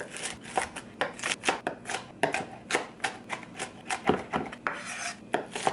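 Kitchen knife chopping sandwich fillings of deli meats and cheese on a cutting board: a steady run of sharp knife strikes, about two or three a second.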